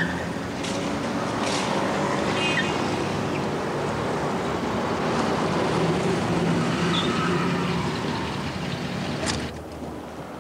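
City street traffic: cars running and passing, with a steady engine hum, easing off near the end.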